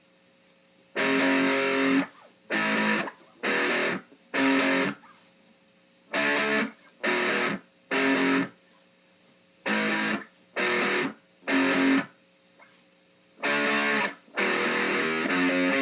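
Distorted electric guitar, a Stratocaster-type, played through a small 10-watt Fender amp with a Line 6 Uber Metal pedal on its metal setting. It plays a riff of chords struck and cut off short: a longer opening chord, then repeated groups of three with silent gaps, turning into continuous playing near the end. A faint steady amp hum is heard in the gaps.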